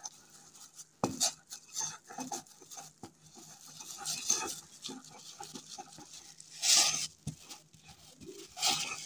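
Pestle grinding and scraping around a mortar (kharal) holding a damp grey mix of ammonium chloride and mercury, in irregular rubbing strokes with clinks against the bowl. The louder strokes come about a second in and around seven seconds.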